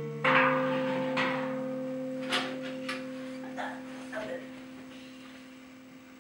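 Closing chord from a small school band with electric guitar, struck about a quarter second in and left to ring, fading slowly away. A few small knocks and clicks sound over the dying chord.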